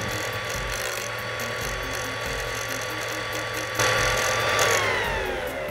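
Wanhao Duplicator i3 Mini 3D printer's internal 24-volt fan running noisily just after power-on: a whir with a steady whine and a rattling pulse. It grows louder a little past the middle, then its whine falls in pitch near the end. The owner blames either a faulty fan or a wire inside the chassis fouling the blades.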